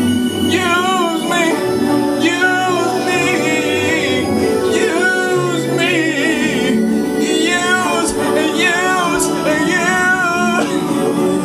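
A man singing along loudly to a hip-hop/R&B track, in drawn-out phrases with wavering pitch over the song's backing.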